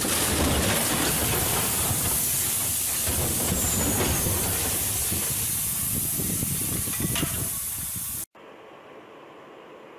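Rockslide: rocks and boulders tumbling down onto a truck, a loud continuous rushing noise with a few sharp impacts. It cuts off suddenly about eight seconds in, leaving a faint steady hiss.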